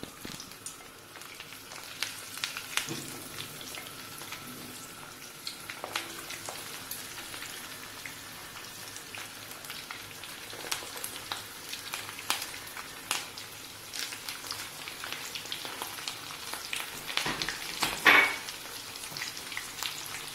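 Breadcrumb-coated cutlets deep-frying in hot ghee in a kadhai, a steady sizzle scattered with small crackles and pops as each one goes into the fat. About 18 seconds in there is one louder sharp crack.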